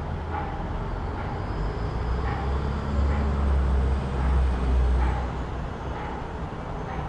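City road traffic: a steady low rumble of vehicles that swells as one passes close, loudest about three to five seconds in.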